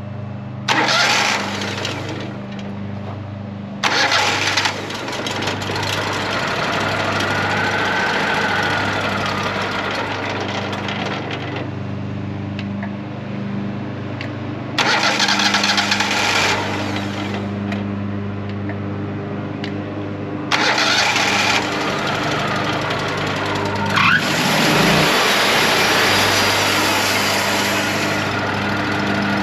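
Woodmizer LT40 sawmill's engine running steadily just after a new O2 sensor has been fitted, with several bursts of loud rushing noise over it, the longest about six seconds.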